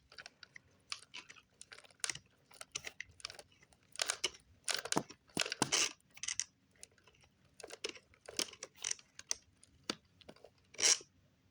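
Hands working plastic RC car parts: irregular small clicks, scrapes and rustles as a part is fitted and tightened by hand, with a few longer scratchy rubs.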